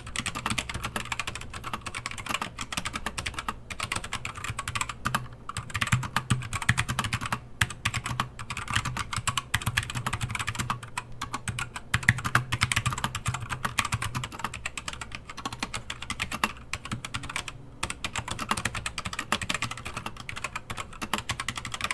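Fast, continuous typing on a Keychron K4 mechanical keyboard with LK optical box switches, the letter keycaps fitted with rubber O-rings: a dense stream of key clicks and clacks with a few brief pauses.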